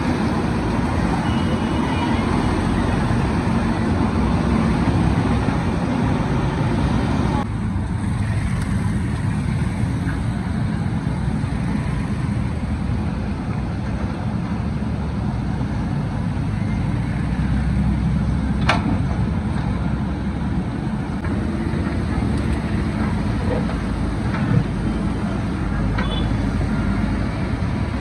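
Diesel engine of a JCB 3DX backhoe loader running steadily as it digs sludge from a river channel, with a few sharp knocks of the working machine, the clearest about two-thirds of the way through. The sound turns duller about a quarter of the way in.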